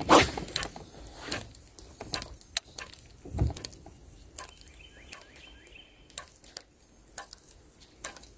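Spinning reel and rod being worked on a lure retrieve: a string of sharp, irregular clicks and taps, a few a second, with one louder knock right at the start.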